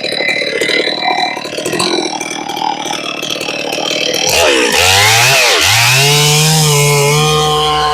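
Large chainsaw with a 56-inch milling bar, idling unevenly, then revved up about four seconds in: the pitch climbs, dips and climbs again, then holds steady at high revs.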